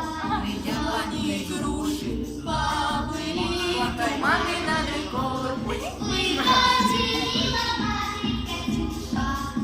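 Several young female voices singing a pop song together over a backing track with a steady beat.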